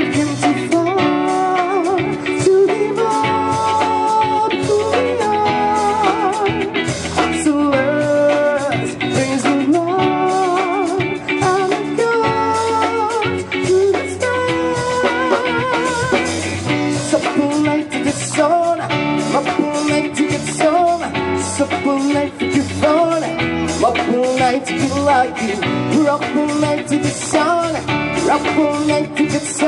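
Live rock band music through a stage PA: electric guitars and drum kit playing a steady beat, with a wavering lead melody line.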